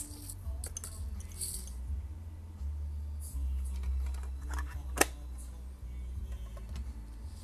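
Small handling clicks and taps as knife handles with metal ends and other small tools are laid down on a rubber bench mat, with one sharp click about five seconds in, over a steady low hum.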